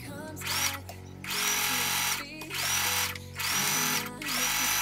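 Small electric sewing machine motor running in short bursts of about a second each. Each burst starts with a quick rising whine as the motor speeds up and cuts off abruptly. Background music plays underneath.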